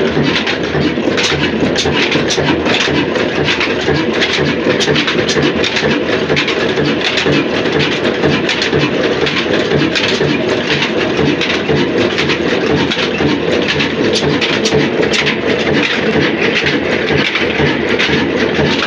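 Newshahi horizontal single-cylinder stationary diesel engine running steadily, a continuous loud mechanical clatter with an even repeating beat.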